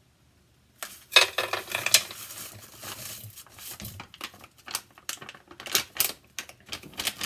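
Cookie-mix packaging crinkling and tearing open, starting about a second in, followed by a run of sharp rustles and clicks as the dry mix is emptied into a bowl.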